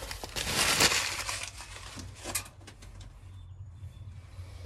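Plastic bubble wrap around a potted cactus crinkling and rustling as it is handled, loudest in the first second, then a few scattered crackles.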